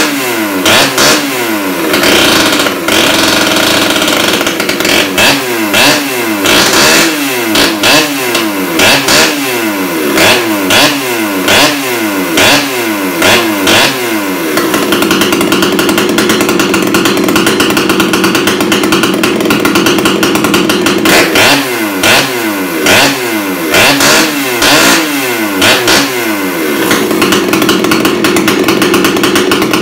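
Husqvarna 266XP two-stroke chainsaw with a custom-built exhaust pipe, running loud and free-revving without cutting. It is blipped up and down about once a second, held at high revs for about six seconds in the middle, then blipped again, ending held high.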